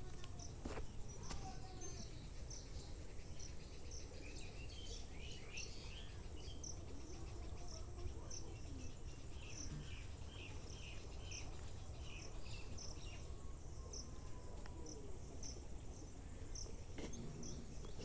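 Birds chirping and calling in a flooded riverside thicket: many short, high chirps repeating in quick runs, with a few lower gliding calls, over a faint low rumble.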